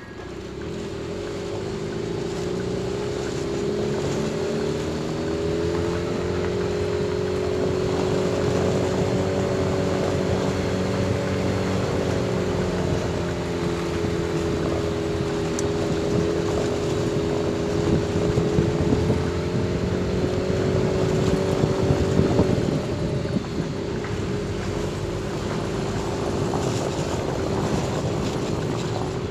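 A vehicle's engine running at a steady cruising speed while driving on a paved road, with wind rushing over the microphone. About three quarters of the way through, the engine note drops away, as when the throttle is eased off.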